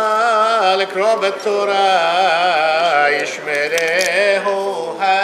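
A single male voice chanting Jewish liturgy in a melody that wavers and curls in pitch, with a brief falter about three and a half seconds in.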